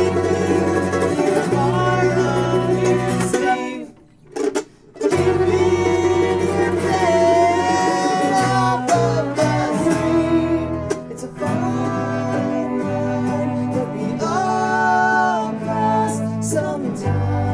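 A string band of acoustic guitar, fiddle, cello, electric bass and mandolin plays a bluegrass-style folk song, with a man singing. About four seconds in, the band stops dead for about a second, then comes back in together.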